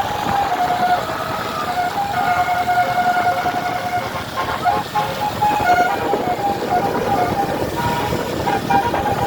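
Tour bus's Basuri 'telolet' multi-tone horn playing a tune of stepped notes, holding longer notes at first and changing notes more quickly in the second half, over the steady noise of the moving bus.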